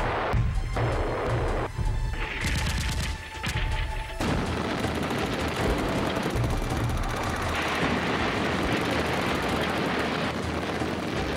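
Rapid gunfire and explosions, with music underneath; the din thickens into continuous noise about four seconds in.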